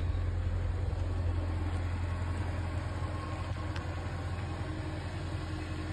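Jaguar XKR's supercharged 4.2-litre V8 idling steadily, a low even hum with no revving.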